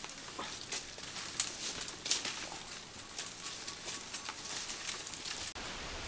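Footsteps and brushing through dry leaves and branches of undergrowth: irregular crackles and rustles. About five and a half seconds in they cut off sharply, leaving a steady hiss of outdoor background.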